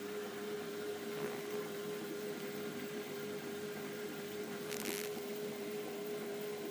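LG F12A8CDP direct-drive washing machine running, a steady motor whine over a noisy hum from the turning drum, with a short hiss about five seconds in.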